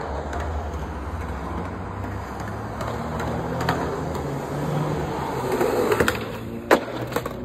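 Skateboard wheels rolling on concrete, a steady low rumble, then a few sharp clacks of the board against the concrete steps near the end, the loudest about a second before the end.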